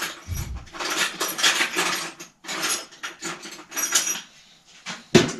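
Small metal parts clinking and rattling as they are rummaged through and handled, with one sharp knock near the end.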